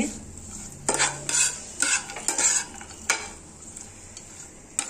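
Metal spatula stirring and scraping potatoes, peanuts and peas around a frying pan, about six irregular scrapes over a light sizzle of the oil frying on a low flame.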